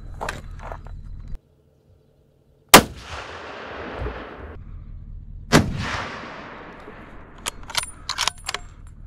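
Two rifle shots from a scoped hunting rifle, about three seconds apart, each echoing and dying away over a second or two. Near the end, a quick run of sharp metallic clicks from the rifle's action being worked.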